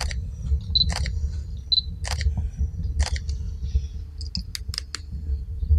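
Camera shutter clicking, single shots about once a second and then a quick run of several near the end, over a steady low rumble.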